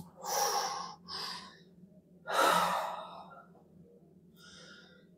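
A person breathing heavily during a side-lying spinal twist manipulation: two quick breaths in the first second and a half, a louder, longer exhalation a little after two seconds with a short falling voiced tone, then a faint breath near the end.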